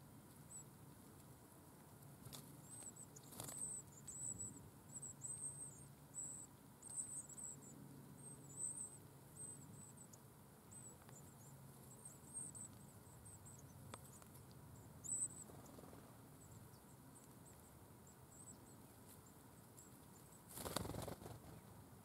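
Yellowhammer nestlings giving faint, rapid, very high-pitched begging cheeps while an adult visits the nest to feed them, the calling dying away after about two-thirds of the time. A brief rustle near the end.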